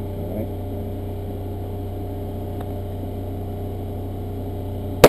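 A steady low hum, then a single handgun shot right at the very end.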